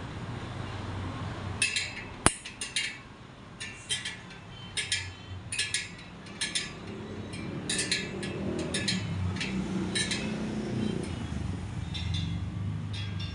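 Irregular light metallic clinks, up to about two a second, from a hand tool on the spokes and rim of a spoked motorcycle wheel being trued on a stand, with one sharp click about two seconds in. A low rumble of the spinning wheel swells in the middle.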